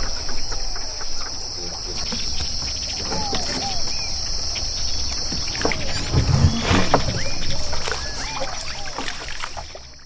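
Ducks calling, many short calls, over a steady high-pitched buzz; the sound fades out near the end.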